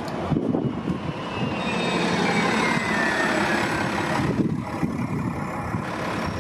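New Flyer XDE60 articulated diesel-electric hybrid bus passing close and pulling away, its Cummins L9 diesel engine and hybrid drive running, with a high whine that falls in pitch from about a second and a half in.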